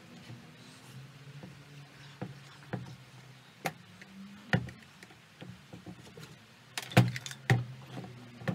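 Scattered clicks and knocks from hands and tools working on chainsaw parts, about half a dozen, the loudest near the end, over a low steady hum.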